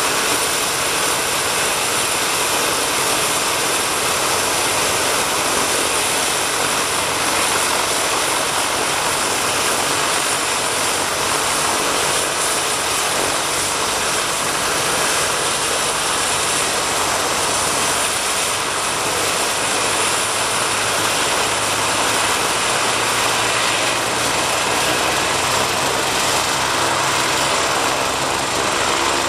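MBB/Eurocopter BK 117 helicopter running on the ground with its rotors turning. A steady turbine whine sits over the rotor noise as it waits on the pad ahead of take-off.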